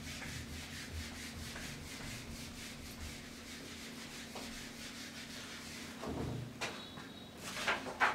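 Felt whiteboard eraser scrubbed back and forth across a whiteboard in quick, even strokes. The scrubbing stops about six seconds in and is followed by a few louder knocks and rustles.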